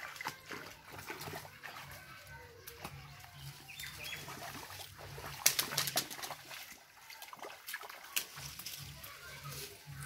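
Bare feet splashing through shallow muddy water in a run of irregular splashes, the loudest cluster about five and a half seconds in.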